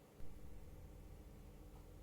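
Music cuts off right at the start, leaving faint room tone with a low, steady hum. A brief soft low thud comes just after the cut.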